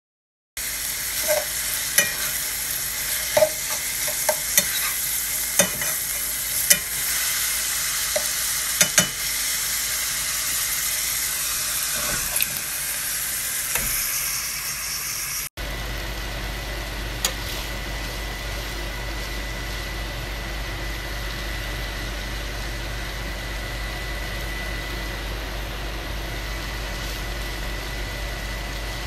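Food sizzling as it fries in a pan, with sharp clicks of a utensil against the pan during the first half. After a cut about halfway through, a lower, steadier frying hiss over a low hum, with a faint steady high tone, while beef, onions and peppers are stirred in the pan.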